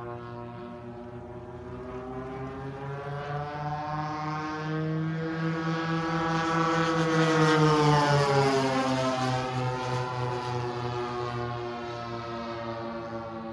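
Twin DLE-35RA single-cylinder two-stroke gasoline engines of a large radio-controlled F7F Tigercat model plane running in flight as it passes overhead: the sound grows louder to a peak just past the middle, then drops in pitch and fades as the plane moves away.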